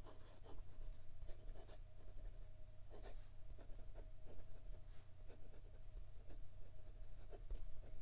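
Fountain pen with an extra-fine, stiff, gold-plated steel nib scratching across notebook paper in quick cursive handwriting, many short strokes one after another. The nib has a slight scratch to it.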